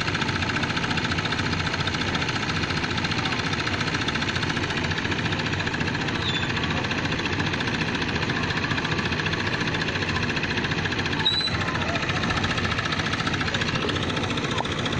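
An engine running steadily, with a brief high chirp about halfway through and a sharp tick a few seconds later.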